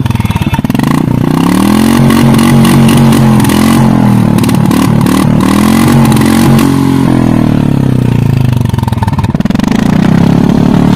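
Royal Enfield single-cylinder motorcycle with an open-ended aftermarket exhaust pipe, idling and revved up and let back down about three times. Its exhaust note is very strong.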